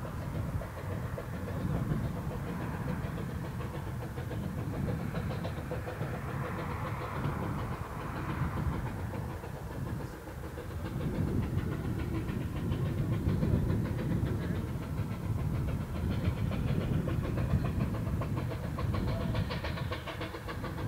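Replica Baldwin 2-6-2T narrow-gauge steam tank engine No. 762 'Lyn' working a train, heard at a distance as a rumble of quick exhaust beats. It grows louder from about halfway through as the train approaches.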